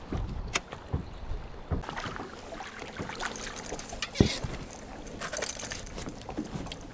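Water lapping at a bass boat, with scattered clicks and knocks from the fishing reel and gear as a small bass is reeled in and swung aboard. A sharp knock about four seconds in is the loudest sound.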